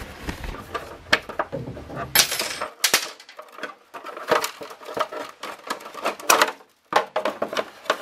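Irregular light metallic clicks and clinks of hand tools and a lower body panel on a motorcycle's underside as the panel is unbolted and taken off to reach the oil filter, with a brief rustle about two seconds in.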